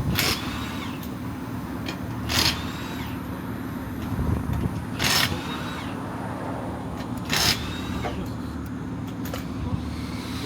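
A vehicle engine running steadily, with four short, sharp bursts of hiss at intervals of two to three seconds.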